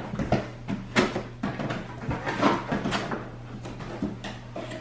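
Cardboard box being opened and handled: flaps pulled back and the packaging shifted, giving irregular knocks and scraping rustles.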